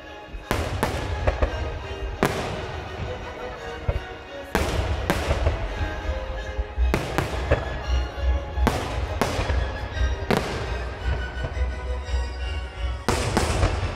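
Aerial fireworks shells bursting overhead: a dozen or so sharp booms at irregular intervals of about half a second to two seconds, with crackle trailing after them. A steady low rumble runs underneath, and music plays in the background.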